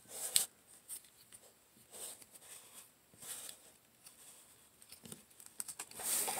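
Plastic parts of a Transformers action figure being handled and moved during its transformation: a few faint, scattered light clicks and rustles.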